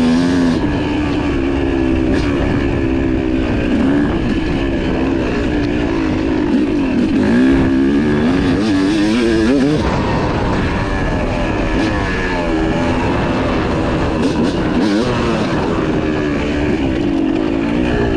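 Yamaha YZ250 two-stroke dirt bike engine being ridden hard, its pitch rising and falling as the throttle opens and closes.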